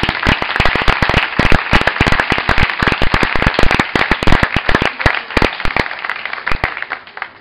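Crowd clapping and applauding: a dense patter of claps that thins out and dies down near the end.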